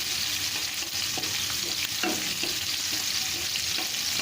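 Chopped onion and bay leaves sizzling in hot olive oil in a kadai: a steady frying hiss. Short stirring scrapes and knocks come every second or so.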